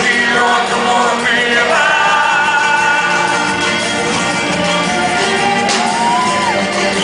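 A Spanish-language rock ballad: a voice singing long, held notes that slide in pitch, over the full band.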